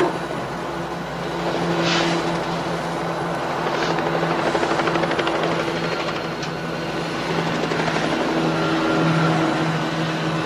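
Helicopter running, a steady drone with a fast rhythmic rotor beat that is strongest in the middle.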